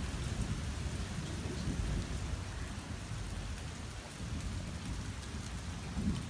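Steady rain falling on a street and lawns, with a low rumble of thunder underneath it in a thunderstorm.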